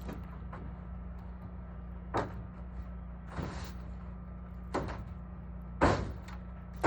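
Repeated short scraping strokes on a barn roof, one every second or so, over a steady low hum.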